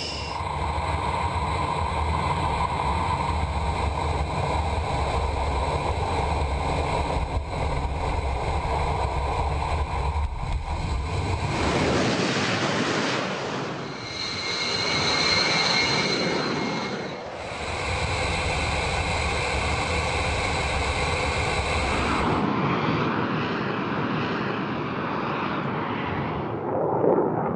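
Jet aircraft engines running: a loud steady rush with a high whine on top, in several clips cut together. The sound changes abruptly about 12, 17 and 22 seconds in.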